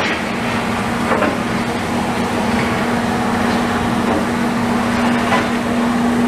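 A steady engine hum from machinery running, over a dense wash of outdoor noise.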